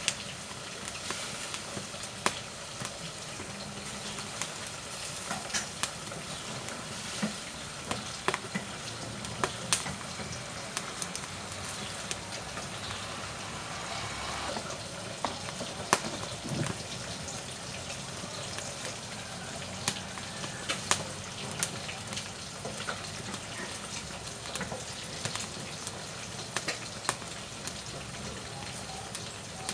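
Firewood burning in a wood-fired cooking stove: a steady hiss with irregular sharp crackles and pops, and a brief hissing swell about halfway through.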